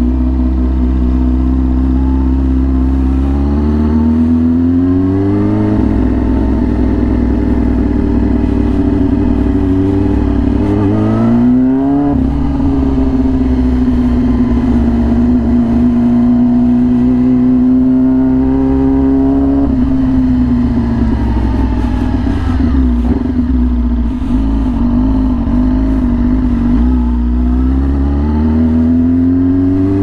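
Yamaha R6 inline-four engine through an SC Project aftermarket exhaust, riding: the engine note climbs over the first five seconds and holds steady, with a quick climb about twelve seconds in. It drops away around twenty seconds, stays low, then climbs again near the end.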